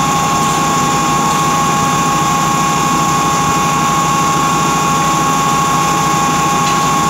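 Small engine running steadily at constant speed, with an even low pulsing and a constant high whine over it.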